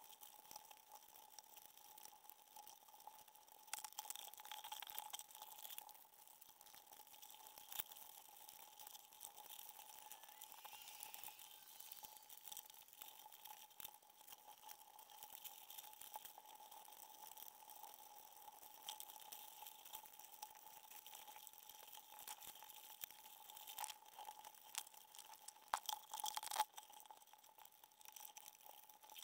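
Faint underwater crackling and scattered clicks, with a steady thin hum beneath, all close to silence.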